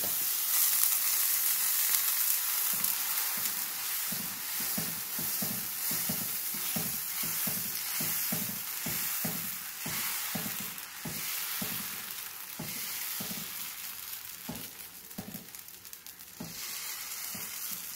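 Dosa batter sizzling on a hot Meyer cast-iron tawa while the back of a ladle spreads it in circles: a steady hiss with soft, rhythmic scraping strokes at about two or three a second. The sizzle grows fainter near the end.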